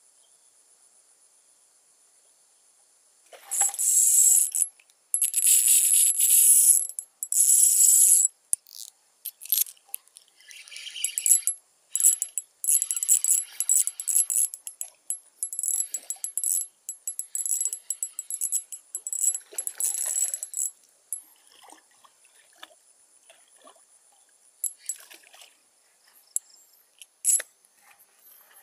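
Insects trill steadily with a high, thin tone. From about three seconds in this is overlaid by repeated loud bursts of jangly, metallic-sounding rattling, long at first and then shorter and choppier, thinning out to scattered clicks near the end.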